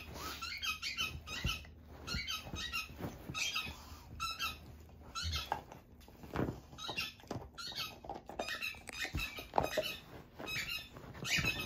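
Yellow Labrador gnawing a hard nylon sword chew toy: its teeth scrape and squeak on the nylon in quick repeated bursts, with a few soft thumps as it shifts about.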